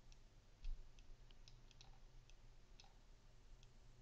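Faint, irregular clicks of a stylus tapping and sliding on a pen tablet while a formula is hand-written, about a dozen over a few seconds, over a low steady hum. A single low bump comes less than a second in.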